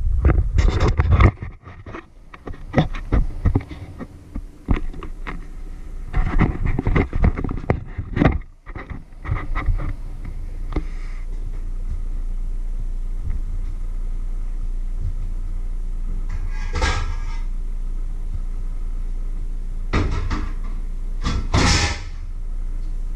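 Knocking and rubbing of a small camera being handled up close and set in place. After about ten seconds this gives way to a steady low hum, broken twice near the end by a short hissing noise.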